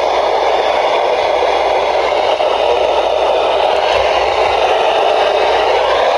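Steady hiss of radio static, strongest in the midrange, without pauses or changes.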